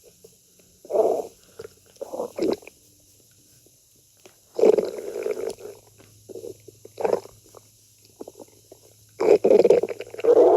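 A person's stomach growling and gurgling in irregular bursts, with longer rumbles about halfway through and near the end.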